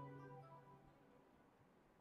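Faint background music, a few held notes, fading out within the first second, then near silence.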